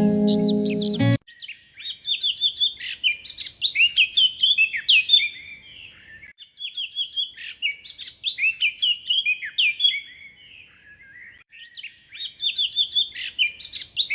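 Songbirds singing in rapid chirps and trills, in bouts of a few seconds separated by short lulls. Background music plays under them for about the first second and then stops abruptly.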